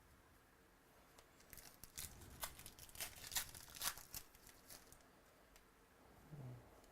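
Faint rustling and crinkling of trading cards and their packaging being handled, with a cluster of sharp clicks and crackles from about one and a half to four seconds in.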